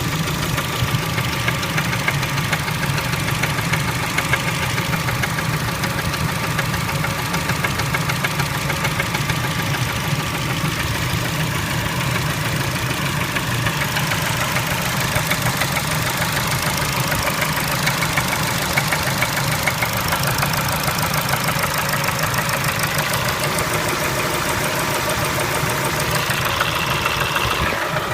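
A Kia Spectra engine running steadily with a rapid, regular knock. The knock is the engine fault being shown.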